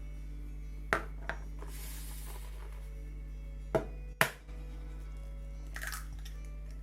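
A few sharp clicks and knocks of kitchen utensils, with a short hiss about two seconds in and a light rattle near the end, over soft background music.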